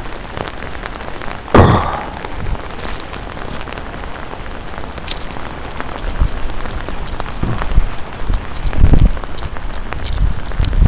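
Heavy rain falling steadily, with drops pattering close by. There is one sharp knock about one and a half seconds in, and a few dull low thumps in the second half.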